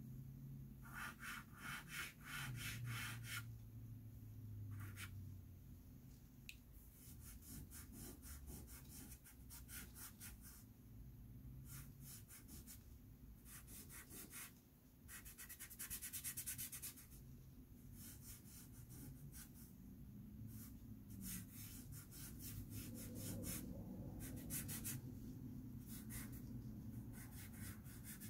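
Soft pastel being worked on paper: faint runs of quick, repeated scratchy strokes, a few seconds each with short pauses between, as pigment is laid down and rubbed in with the fingers.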